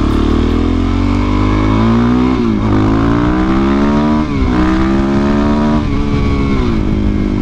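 Suzuki DR-Z400SM's single-cylinder four-stroke engine accelerating away from a stop, its pitch rising through each gear with three upshifts: about two and a half, four and a quarter, and six seconds in. The pitch then eases slightly lower near the end.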